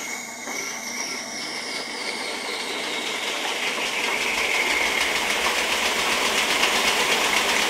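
Homemade wood-framed bandsaw with 20-inch wheelchair wheels, driven by an electric motor through a V-belt, just switched on and coming up to speed. Its running noise grows steadily louder, with a fast, even pulsing. The V-belt is warped and the large pulley is not centred, and the machine wobbles.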